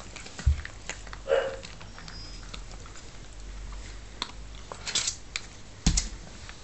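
Seven-week-old Nova Scotia Duck Tolling Retriever puppies mouthing and play-biting each other in their dog bed. There are scattered small rustles and clicks, with a soft thump about half a second in and another near the end.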